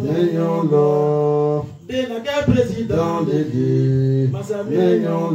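A man chanting a devotional song into a microphone in long held notes, with a short break for breath about two seconds in.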